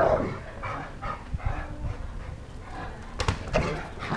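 Dog making short vocal sounds while playing.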